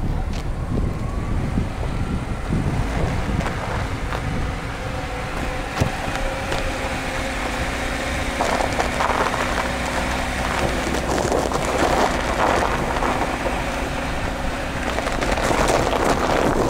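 Car driving over lake ice, heard through a microphone mounted outside on the body. A steady engine hum sits under wind noise, and the studded tyres crunch over ice and snow, rougher in patches in the second half.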